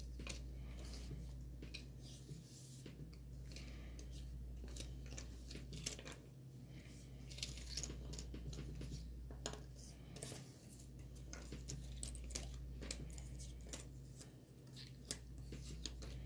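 Cardboard jigsaw puzzle pieces being handled on a wooden table: scattered small clicks, taps and rustles as pieces are picked up, slid and pressed together, over a steady low hum.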